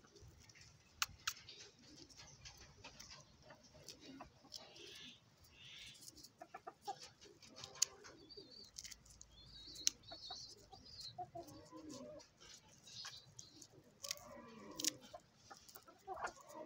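Chickens clucking softly at intervals, with scattered sharp clicks and a few higher chirps partway through.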